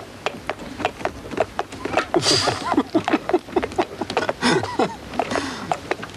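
Horse's hooves clip-clopping steadily as it draws a carriage, about three or four hoofbeats a second, with a man laughing over it a couple of times.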